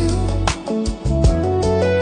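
Music: a soft acoustic-guitar love song playing on between sung lines, with a bass line and regular percussive hits.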